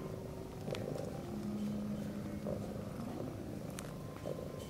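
A cat purring steadily, with two light clicks, one about a second in and one near the end.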